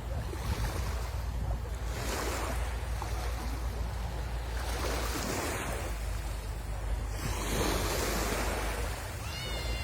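Sea surf washing onto the shore: a steady rush of breaking waves that swells and eases every couple of seconds, with wind rumbling on the microphone. A brief high-pitched call starts near the end.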